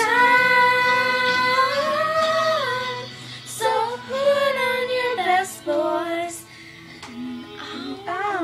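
Amateur girls' singing: long, wordless held notes that bend in pitch, with short breaks between phrases, over faint backing music.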